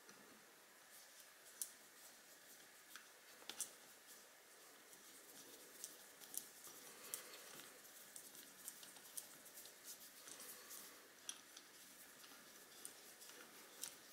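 Faint, irregular small metal clicks of a screwdriver working the cap screws on a rifle scope's ring mounts as they are tightened.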